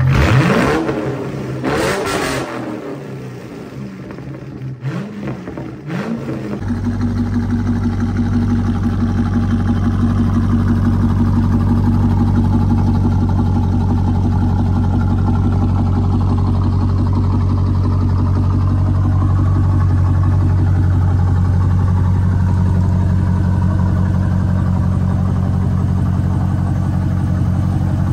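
1999 Corvette C5's LS1 V8 revved a few times in the first few seconds, pitch rising and falling, with a couple of short blips. It then settles into a steady idle for the rest.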